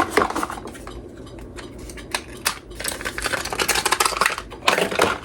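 Irregular clicks, taps and rustles of small camera accessories and their plastic and cardboard packaging being handled and unpacked.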